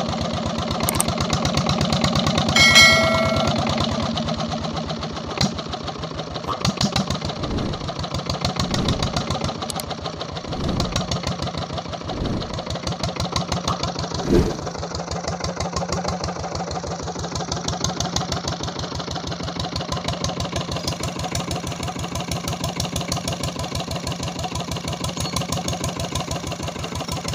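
Single-cylinder Peter diesel engine running steadily with an even, rapid knock, just after a new injector nozzle and fuel-pump plunger have been fitted. A short high-pitched tone sounds briefly about three seconds in.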